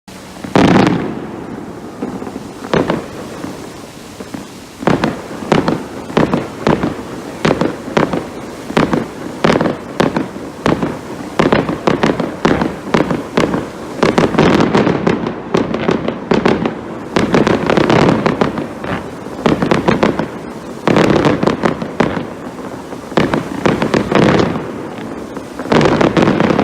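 Fireworks going off in a rapid series of sharp bangs, each with a rumbling tail. Denser volleys come through the middle and again near the end.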